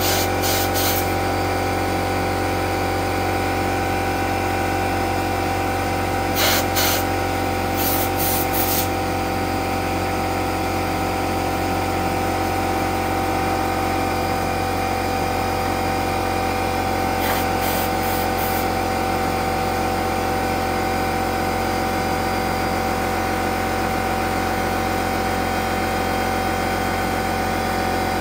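Pancake air compressor running steadily, with several short hissing blasts of compressed air from a blow gun, blowing dust out of drilled holes so the epoxy will bond.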